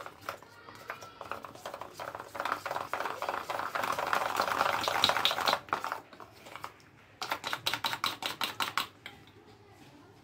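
Steel spoon beating flour-and-water batter in a small stainless steel bowl, clinking rapidly and evenly against the metal as the batter is whisked smooth. It goes in two bouts with a short pause about six seconds in, and stops about nine seconds in.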